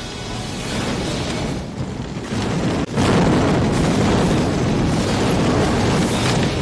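Electrical arcing underwater: a loud, continuous crackle and low rumble of current running over a submerged body, jumping suddenly louder about three seconds in.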